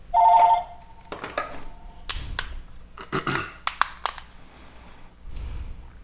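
A short, loud two-tone electronic beep, then a series of small clicks and taps of a smartphone's plastic housing and internal parts being pried open and handled.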